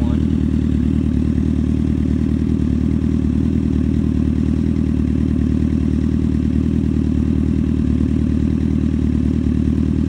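Four-cylinder sportbike engine idling steadily, warm, while the owner checks whether one cylinder is misfiring.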